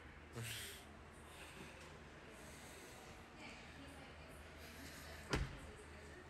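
A car door shuts with a single sharp thump about five seconds in, over a steady low hum. A brief rustle comes about half a second in.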